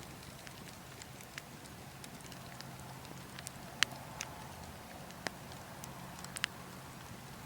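Burning wood logs crackling, with sharp irregular pops scattered through, the loudest about four seconds in, over a steady low wind rumble.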